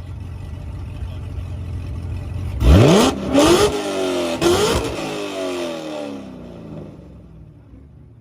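C6 Corvette ZR1's supercharged V8 running with a low rumble, then revved hard in three quick blips. After that its pitch slides down and the sound fades away near the end.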